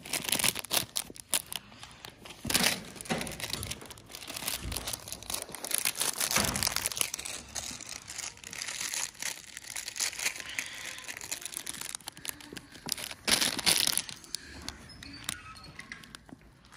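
Plastic wrapper of a mini Oreo snack packet crinkling as it is handled, in irregular crackly bursts, with louder crackles about two and a half seconds in and again around thirteen seconds in.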